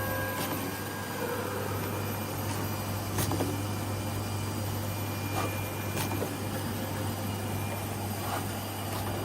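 Snack bar forming line machinery running steadily, with a strong low hum under a constant mechanical whir. Sharp clicks come about three seconds in and again about six seconds in, with fainter ones in between.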